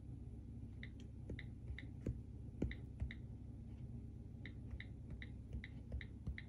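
iPad 2 on-screen keyboard click sounds as keys are tapped, each tick with a soft fingertip tap on the glass. The clicks come in two quick runs with a short pause about halfway through.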